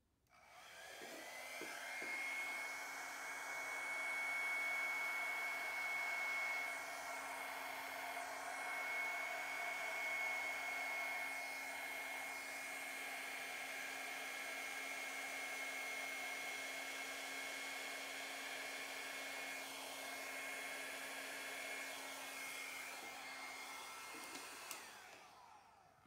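Handheld hair dryer running, blowing wet pour paint across a canvas. Its motor spins up to a steady whine over the first second or two, with a rushing air hiss, then winds down and stops near the end.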